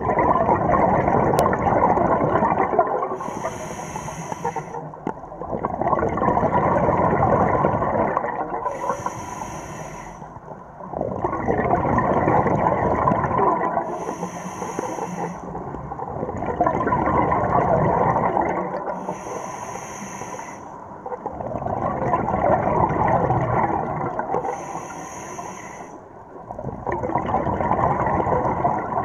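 Scuba diver breathing through a regulator: a short hiss on each inhale, then a long bubbling exhale, in a steady cycle about every five seconds.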